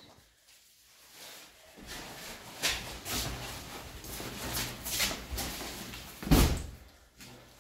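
Heavy woven plastic sacks rustling and scraping as they are carried and handled, with a heavy thud about six seconds in as a sack is dropped onto a stack.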